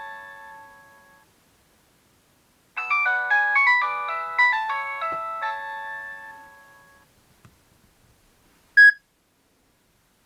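Nokia 3230 mobile phone playing polyphonic ringtones through its loudspeaker: the last bell-like notes of one tune fade away, then about three seconds in a new quick melody of bright notes plays for about four seconds and dies away. A single short beep sounds near the end.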